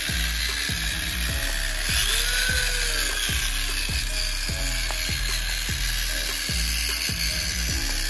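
Music with a steady heavy beat, over the whirring of the model tractor's small electric gear motor.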